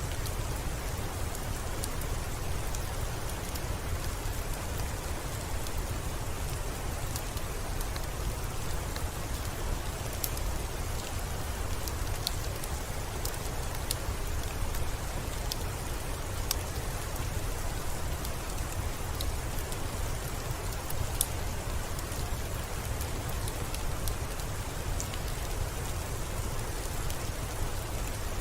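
Steady rain falling on a surface, with scattered sharp drop ticks and a steady low rumble underneath.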